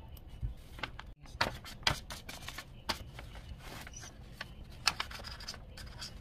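A paper ballot being handled, rustling and crinkling, with a string of short sharp clicks and taps. The loudest clicks come about two and five seconds in.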